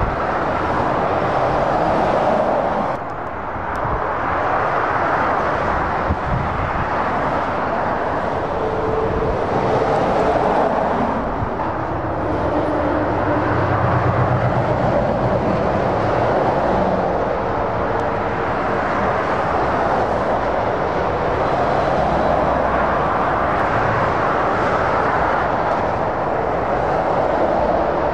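Continuous motorway traffic: heavy diesel lorries and cars passing at speed, a steady roar of tyres on the road surface with engine drone underneath. It swells and fades as each vehicle goes by.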